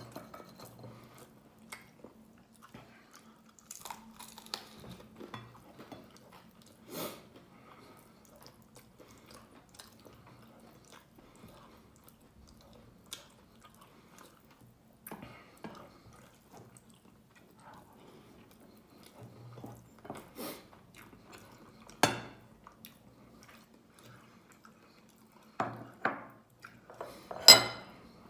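Close-up eating sounds: chewing and mouth smacks as rice is eaten by hand, with scattered clicks and knocks, the loudest near the end.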